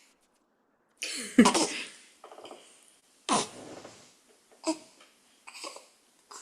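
A person making a series of short, sharp non-speech vocal sounds with breaths between them, about five bursts, the loudest about a second in.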